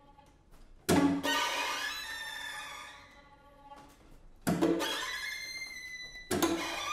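String quartet playing abrupt, loud accented chords: three sharp attacks, about a second in, at about four and a half seconds and just before the end, each dying away into quieter sustained string tones.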